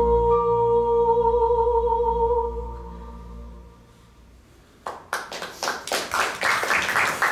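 A woman's voice holds a long final sung note over a low sustained live-band accompaniment, and both fade away about three seconds in. After a brief hush, the audience breaks into applause just before the end.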